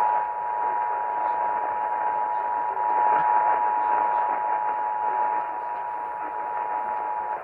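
Emergency Alert System attention signal: two steady tones near 853 and 960 Hz sounding together, heard over AM radio with a hiss of static, cutting off at the very end. It announces a Child Abduction Emergency (Amber Alert) broadcast.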